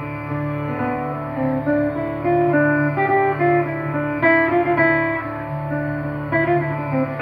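Acoustic guitar picked note by note, playing a slow melody over steady held low notes.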